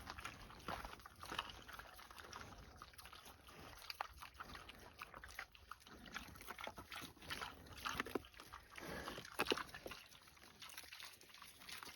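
Kunekune pigs close by, grunting faintly and snuffling, with many small scattered clicks and rustles.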